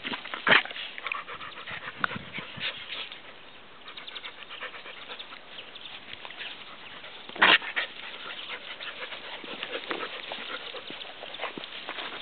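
Dogs play-fighting: panting and scuffling, with a sharp short sound about half a second in and a louder one a little past halfway.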